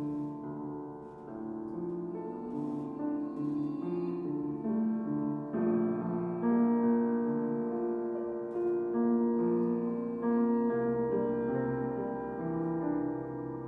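Piano playing slow, held notes and chords in a free improvisation.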